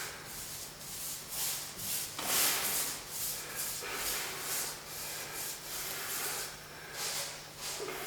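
Hand sanding of cured Bondo body filler: sandpaper rubbing back and forth in quick strokes, about two to three a second, with one longer stroke about two seconds in.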